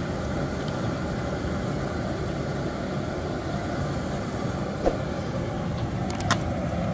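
Gas burner under an iron kadhai running with a steady low roar while cooking oil pours from a pouch into the pan; a few light clicks come near the end.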